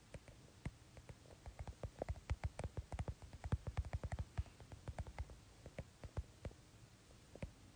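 Fingers tapping on a phone's touchscreen in quick, uneven runs of sharp clicks, several a second, as someone types on it.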